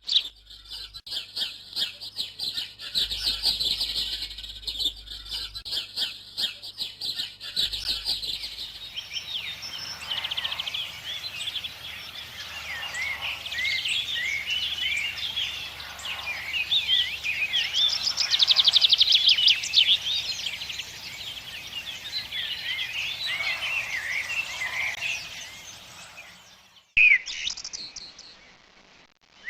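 Birdsong from recordings: first a fast run of high, repeated chirps for about nine seconds, then a long, varied warbling song of many quick notes, and a different short song near the end.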